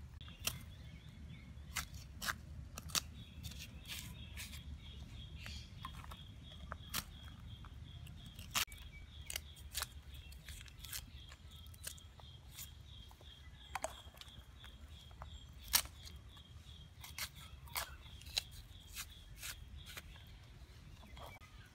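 Kitchen knife peeling cassava root by hand: irregular crisp snaps and scrapes as the bark and rind are cut and stripped away. A steady high pulsing trill runs behind it.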